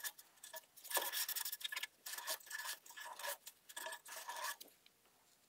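Paper towel damp with rubbing alcohol scrubbing the dusty blades and frame of the xTool S1 laser's rear exhaust fan. Quick scratchy rubbing strokes come in short bunches and stop about four and a half seconds in.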